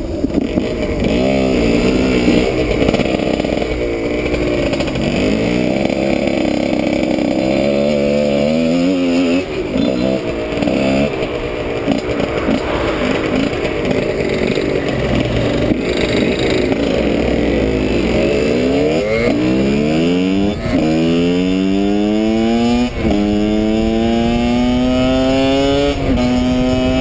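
Husqvarna 125 WRE's two-stroke single with its Giannelli exhaust, revving up and down under way, then accelerating through the gears near the end: three long climbs in pitch, each dropping back at an upshift before the next. A steady rush of wind noise lies under it.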